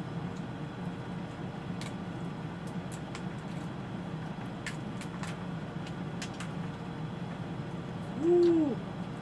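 Steady low hum with a few faint clicks of crab shell being picked apart by hand. Just after eight seconds in, a man gives one short pitched hoot that rises and falls, the loudest sound.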